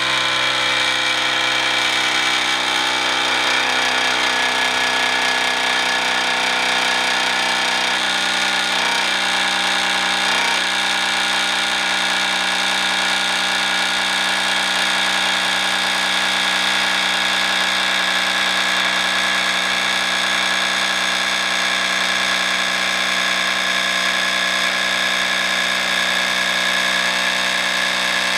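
The battery-powered on-board air compressor of a Legend Air-A air monoshock running with a steady electric whine, pumping up the shock to raise the motorcycle's rear to full ride height.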